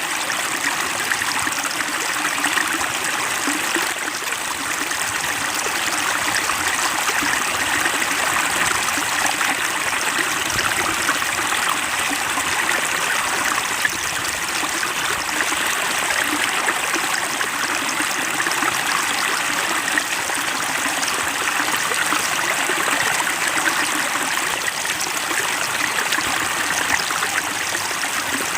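Flowing water running steadily over rocks, a continuous stream sound with trickling.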